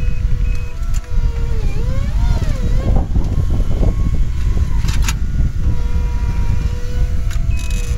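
Caterpillar 259D3 compact track loader's diesel engine running under load with a heavy low rumble, its pitch dipping and rising between about one and three seconds in as the grapple works a stump. Scattered clicks and one sharp clank about five seconds in.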